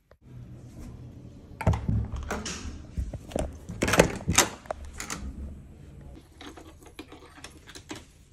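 Handling noise: rustling with a quick, irregular run of clicks and knocks as things are moved about close to the microphone, loudest about four seconds in and thinning out towards the end.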